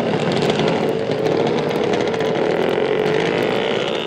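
A small motor running steadily with a buzzing whine, its pitch creeping up over the last second.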